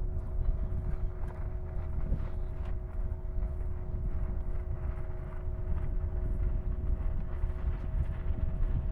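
Wind rumbling on the microphone, with a steady two-note hum underneath and a few faint ticks.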